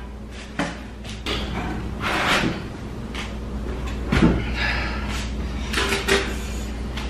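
A heavy metal-framed kitchen island being wrestled upright: a string of irregular knocks and clunks as the frame and top shift and bump, the loudest clunk about four seconds in.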